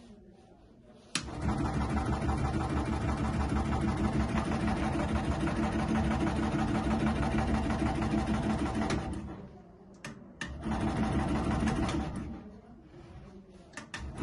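Electric double-frame boba milk tea shaker starting with a sharp click about a second in and running, its stainless shaker cups rattling rapidly in their frames for about eight seconds before it winds down. After a couple of clicks it runs again briefly for under two seconds and stops.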